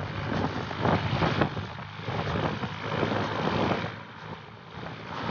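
Gusty wind buffeting the microphone, swelling and falling unevenly, over a steady low engine drone.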